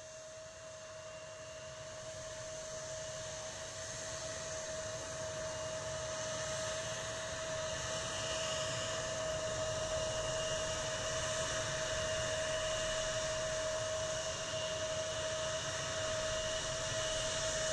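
WestJet Boeing 787 Dreamliner's turbofans on final approach and landing: a steady jet whine and hiss with one held tone, growing louder as the airliner comes in over the runway.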